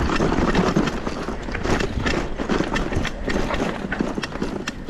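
Mountain bike clattering over a rough, technical downhill trail: irregular knocks and rattles of the tyres and bike on rocks and roots over a steady low rumble.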